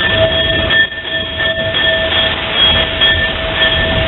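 An 0-8-0 tank steam locomotive running slowly, heard from its cab, with a steady high-pitched squeal over the running noise.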